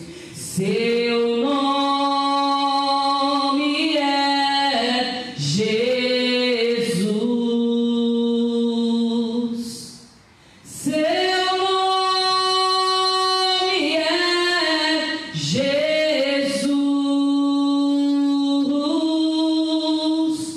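A woman singing solo and unaccompanied into a microphone, in slow, long held notes that glide from one to the next. She pauses briefly for breath about halfway through.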